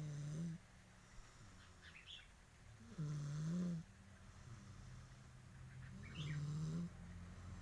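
Snoring: three low snores about three seconds apart, each lasting under a second.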